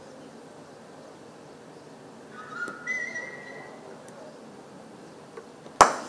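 A cricket bat strikes the ball once near the end, a single sharp crack. Earlier there is a short high whistle about two and a half seconds in, over faint outdoor background noise.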